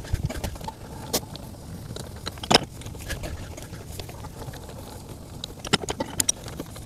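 Metallic clicks and clacks from a hand-cranked torque multiplier being turned on a semi truck wheel's lug nut, loosening it, with the loudest clack about two and a half seconds in and a quick run of clicks near the end.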